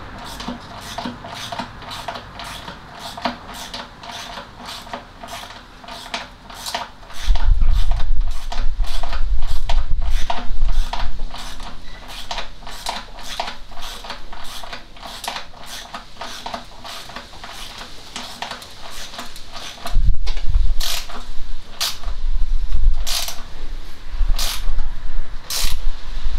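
Ratchet spanner clicking steadily, about three clicks a second, as a bolt on the engine mounts is tightened down. Loud low bumps and knocks come in for a few seconds partway through and again near the end.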